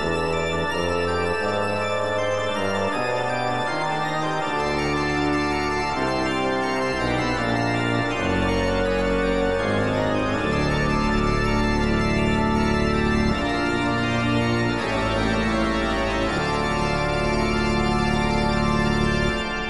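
Background music of held, organ-like keyboard chords, changing every second or so at a steady level.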